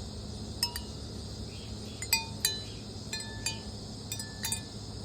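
Wind chime ringing in irregular, scattered strikes, some close together, each leaving a short clear ring, over a steady low hum.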